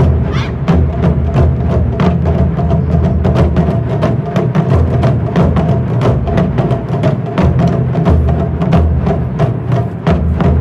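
Ensemble of Japanese taiko drums, including rope-laced okedo drums, played together in a fast, continuous rhythm of dense, closely spaced strokes with a heavy low end.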